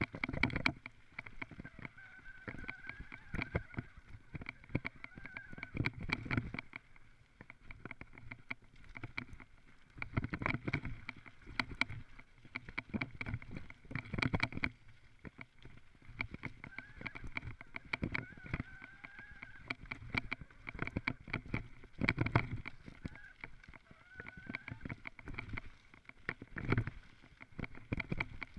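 Mountain bike clattering and rattling as it rides fast down a rough dirt forest trail, with irregular bursts of knocks and jolts over a low rumble of tyres on dirt.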